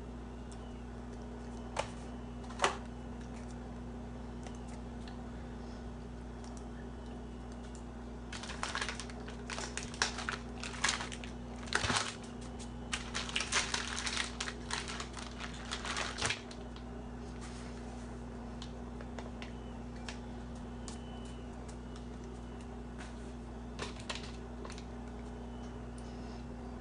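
Irregular light taps, slaps and claps of hands striking each other and the chest while signing. There are a couple early, then a dense clattering run lasting about eight seconds in the middle, and a few more near the end, over a steady low electrical hum.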